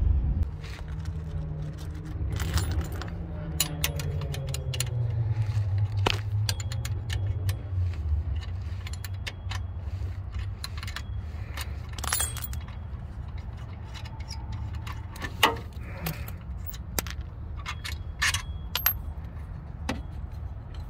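Ratchet wrench and metal hardware clicking and clinking irregularly as the bolts of a turbo wastegate's exhaust band clamp are loosened. A low engine-like rumble runs underneath, loudest and slowly dropping in pitch over the first several seconds.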